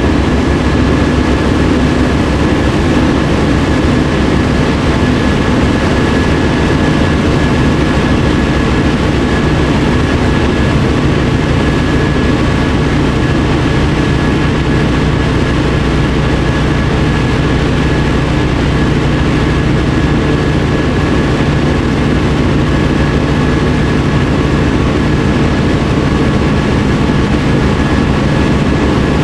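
Tecnam Sierra's Rotax 912 engine and propeller heard from inside the cabin at takeoff power through the takeoff roll, lift-off and climb: a loud, steady drone.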